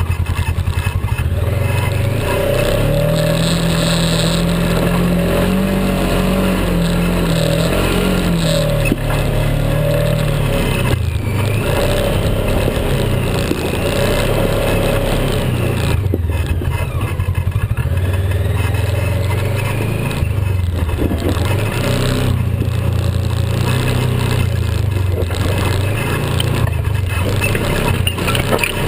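Polaris RZR XP 900's twin-cylinder engine running under changing throttle as the side-by-side drives over rough ground. Its pitch climbs a few seconds in, stays high, then drops and rises again several times.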